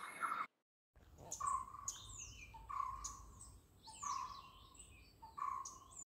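White-cheeked barbet calling: a low note repeated roughly every second and a half, with thin, higher falling notes above it.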